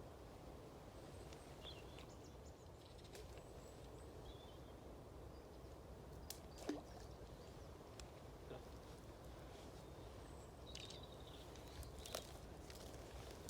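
Quiet outdoor ambience with a steady low wind rumble, broken by a few small clicks and several brief, faint high chirps.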